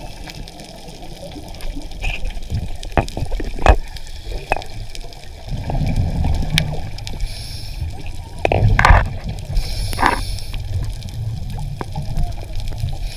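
Muffled underwater sound: a low rumble of moving water with gurgling, and scattered clicks and knocks. The rumble grows louder about halfway through.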